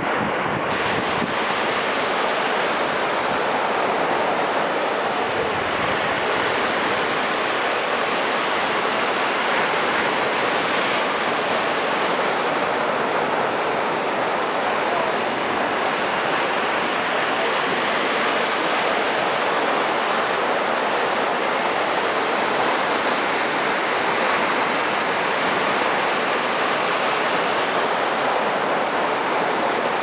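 Small sea waves breaking and washing up on a sandy beach: a steady, continuous surf hiss.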